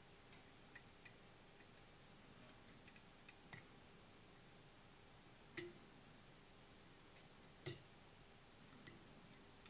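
Near silence broken by scattered small clicks and ticks from fly-tying tools being handled at the vise, with two sharper clicks past the middle.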